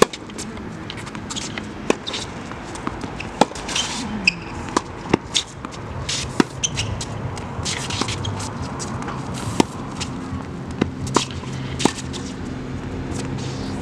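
Tennis rally on a hard court: sharp pops of the ball off the rackets and court, roughly every second or so, with shoes scuffing as the players move. A low engine hum comes in about halfway through.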